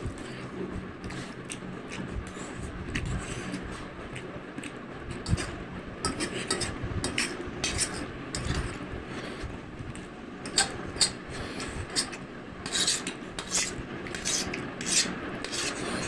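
A person eating instant noodles close to the microphone: irregular slurps and chews, with a utensil scraping and clicking against the bowl. The sharp sounds come more often in the second half.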